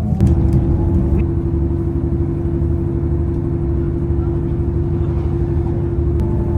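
Inside the carriage of a Class 158 diesel multiple unit: a steady low rumble from the train under way, with a constant droning hum over it.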